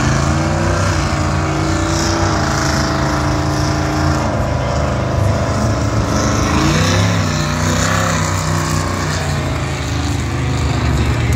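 Monster truck engine running loud and revving, its pitch holding high, dipping, then climbing again about two thirds of the way through.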